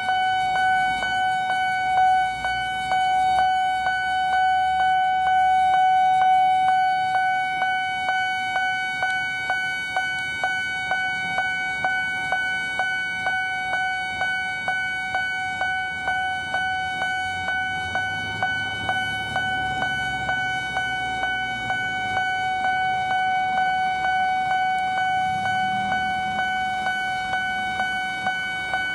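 Railway level-crossing warning bell ringing steadily with a regular strike about twice a second, warning of an approaching train while the barrier is down. Road traffic rumbles underneath, louder in the second half.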